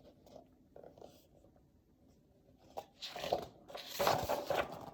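Paper rustling and crinkling after a sharp click, from a page or sheet being handled, the loudest handling coming in the last couple of seconds.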